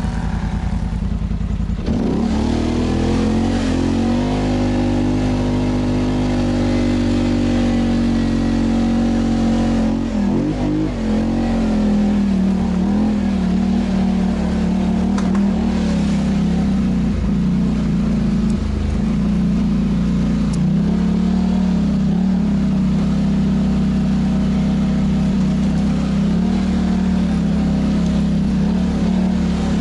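Polaris Sportsman ATV's twin-cylinder engine running under way at a steady pace. The pitch climbs as it speeds up about two seconds in, dips briefly off the throttle around ten seconds in, then holds steady.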